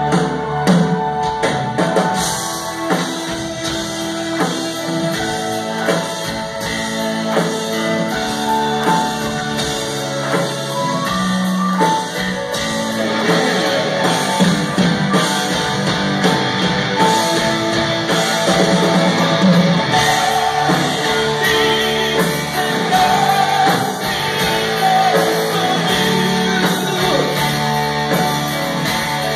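Live rock band playing a power ballad, with electric guitar, drums and singing, heard from the audience in a concert hall.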